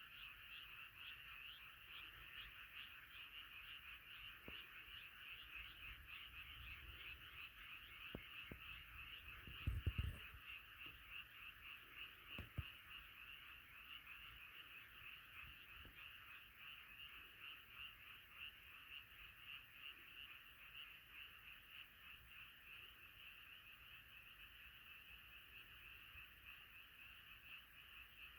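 Faint chorus of many frogs calling at once, a dense, rapid trilling that never lets up. A brief low thump about ten seconds in, and a small click a little later.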